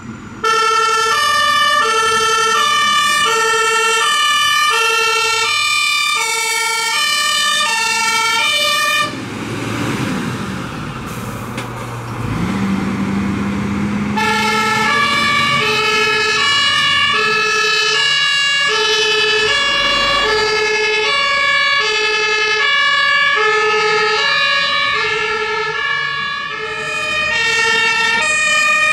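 German fire engine's two-tone siren (Martinshorn) sounding its alternating high and low notes, about one cycle a second. It drops out about nine seconds in, leaving a noisier stretch with a low engine hum, and starts again a few seconds later.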